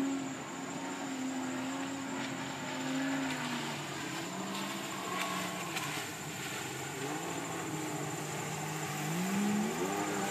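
1999 Polaris 1050cc, 115 hp jet ski's two-stroke three-cylinder engine running out on the water, its pitch rising and falling as the rider works the throttle. It drops back about three and a half seconds in and climbs again near the end as the craft speeds up.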